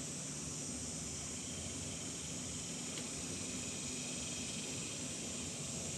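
Steady background hiss with a faint low hum underneath, and no distinct event apart from one tiny tick about three seconds in.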